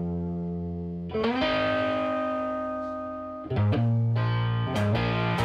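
Background music: electric guitar chords left ringing, changing about a second in and again about three and a half seconds in, then quicker picked strokes near the end.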